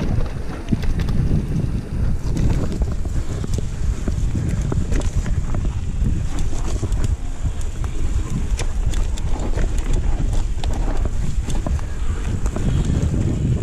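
Mountain bike descending a dusty dirt trail at speed: wind buffeting the microphone over tyres rolling on loose dirt, with frequent sharp clicks and knocks as the bike rattles over bumps.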